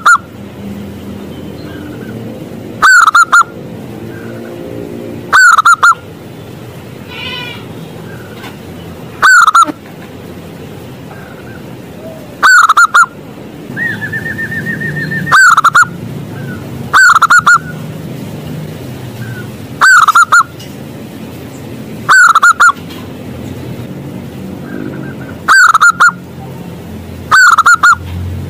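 Zebra dove (perkutut) singing: about ten loud, clear cooing phrases, one every two to three seconds.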